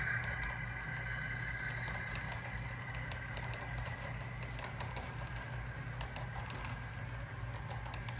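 Model freight train cars rolling past on the track: a rapid, irregular clicking of wheels over the rail joints over a steady low hum, with a higher tone fading out in the first couple of seconds.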